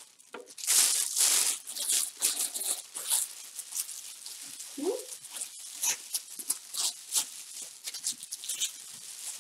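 Iridescent cellophane and tissue paper crinkling and crackling in irregular bursts as they are gathered and pleated by hand around a bottle. One short rising squeak comes about five seconds in.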